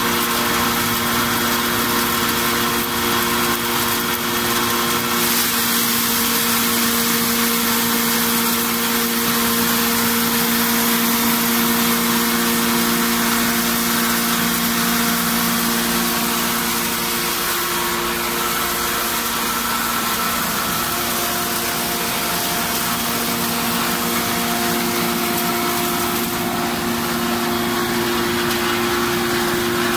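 SW420 hammer-mill feed crusher, driven by an electric motor, running steadily while grinding corn fed from its hopper: a steady hum of several even tones with a dense hiss over it.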